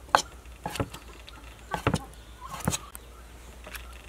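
Kitchen knife cutting through cooked pork on a wooden cutting board: sharp knocks of the blade striking the board, roughly once a second, some in quick pairs.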